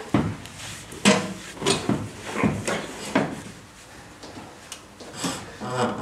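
Metal parts knocking and clunking as they are handled and fitted into the car: about eight separate knocks, each with a short ring, and a lull about four to five seconds in.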